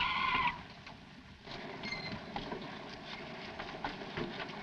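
Car tyres squealing as a car pulls up to a stop, cutting off about half a second in. After that there is only a low background with a few faint clicks.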